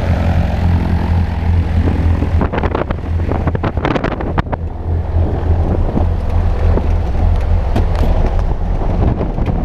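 Single-engine light aircraft's piston engine and propeller idling on the ground, a loud steady drone. A few seconds in, the hiss turns muffled as the sound moves inside the cabin, and there are several knocks and bumps as the jumpers climb aboard.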